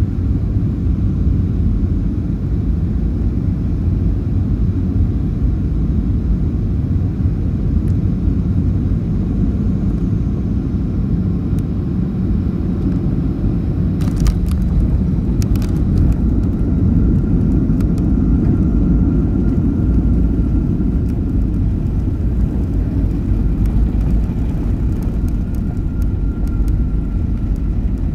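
Cabin noise inside a Boeing 737 landing: the steady low rumble of its jet engines and airflow, with a few sharp knocks about fourteen to sixteen seconds in. The rumble then swells louder for several seconds as the airliner rolls down the runway.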